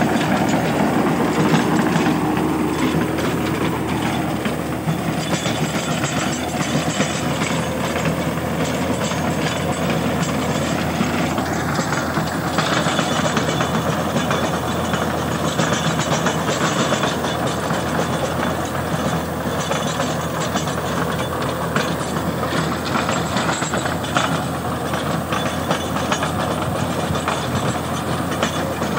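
Mahindra 575 DI tractor's four-cylinder diesel engine running steadily under load while driving a rotavator, whose spinning blades churn through soil and cane trash with a continuous rattling clatter.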